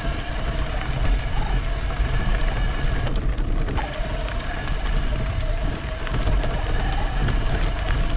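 E-bike motor whining steadily under way, its pitch wavering slightly with speed, over a constant low rumble.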